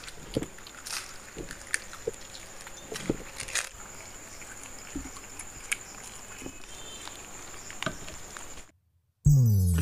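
Two people eating street food: crunching and chewing of fuchka, fried momos and egg rolls, with scattered mouth clicks and smacks. Near the end the sound drops out briefly, then jingly music starts loudly.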